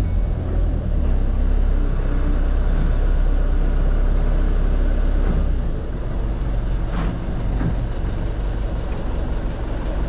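Motorhome's truck engine running, heard from inside the cab as it drives off; the deep drone drops a little a bit past halfway, and a short click sounds about two-thirds of the way in.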